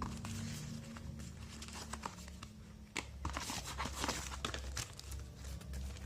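Packaging crinkling and rustling as it is handled, with dense crackles mostly in the second half, over a low steady hum.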